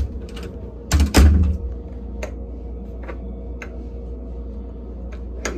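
A door thuds shut about a second in, followed by a few light clicks and knocks, over a steady low hum.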